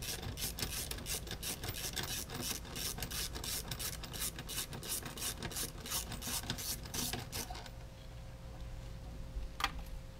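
Hand socket ratchet clicking steadily, about four to five clicks a second, as a bolt is backed out with a 10 mm socket on a long extension. The clicking stops about three-quarters of the way through, and one more sharp click comes near the end.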